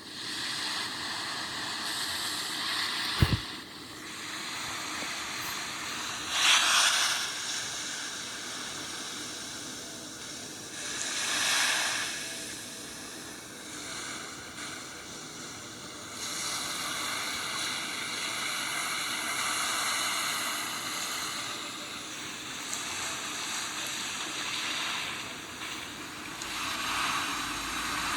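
Steady rushing, hissing noise that swells and fades several times, with one sharp knock about three seconds in.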